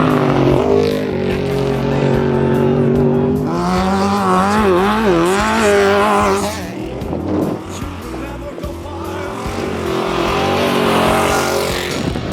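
Off-road race vehicle engine running hard, its pitch holding steady and then rising and falling rapidly, with background music.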